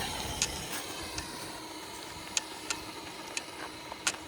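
Traxxas TRX-6 RC crawler driving slowly: its electric motor and drivetrain give a faint steady hum, with several sharp clicks scattered through it.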